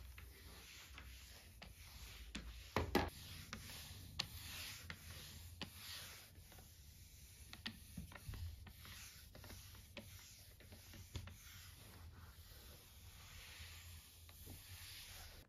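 Flat mop with a wet wipe on its pad rubbing back and forth across a wood-look hard floor, a steady run of swishes with light clicks and knocks as the mop head moves. One louder knock comes about three seconds in.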